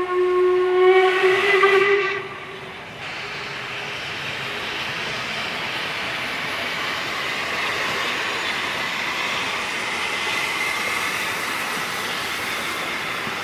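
Steam locomotive whistle sounding one held note for about two seconds, then a steady hiss of escaping steam from a locomotive.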